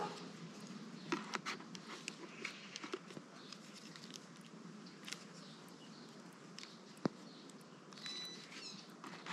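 Light plastic clicks and handling noise as a Cardo intercom mounting plate is turned over and fingered, with one sharp click about seven seconds in. A few faint high chirps come near the end.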